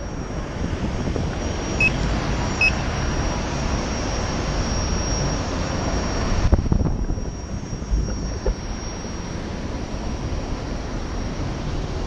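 Wind rushing over a low-mounted action-camera microphone and tyre rumble from an electric unicycle rolling over pavement, with a thin high steady tone above it. There are two short beeps about two and three seconds in. The hiss turns duller about six and a half seconds in.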